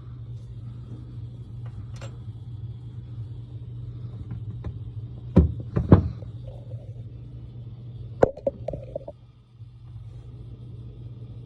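Metal parts of a Brunswick A/A2 pinsetter's bucket assembly being handled over a steady low hum: two sharp knocks about halfway through, then another knock followed by a brief rattle of lighter clinks.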